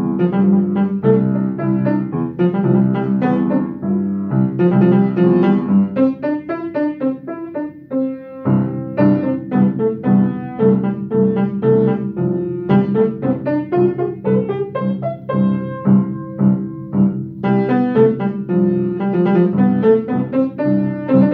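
Mason & Hamlin piano played with both hands: a sonatina, in a steady run of melody over chords, with a short lull about eight seconds in before a fresh chord.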